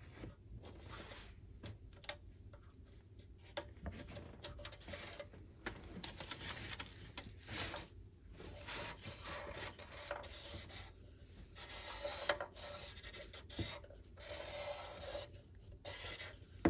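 Microfiber cloth rubbing and wiping the throttle-body mounting face of the intake manifold, in uneven scratchy strokes with short pauses, to clean the surface for a new gasket.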